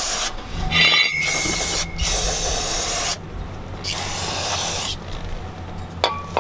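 Aerosol brake cleaner hissing from a can with a straw nozzle in several short bursts, cleaning the wire-brushed wheel hub. The spraying stops about five seconds in, and a small click follows near the end.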